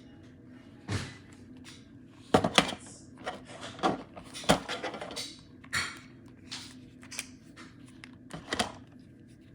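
Everyday-carry hand tools being handled: a string of irregular sharp clicks, snaps and knocks, some in quick pairs, with short pauses between them.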